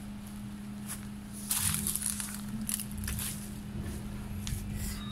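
Footsteps crunching and rustling through dry weeds and grass, loudest about one and a half seconds in, over a steady low hum.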